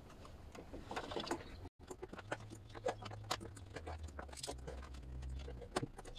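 Scattered light clicks, taps and rattles of hand tools and engine parts being handled while a silicone hose is fitted.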